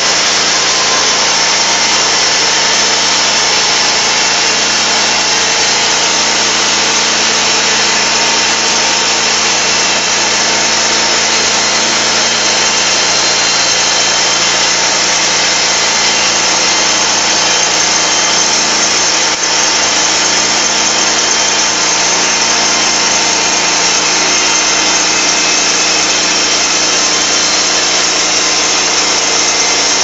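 Baker 18 band sawmill sawing a seasoned spruce log, its 23 HP Briggs & Stratton engine running steadily under load as the band blade cuts, with an even, continuous noise. The band was pretty dull, in the owner's view.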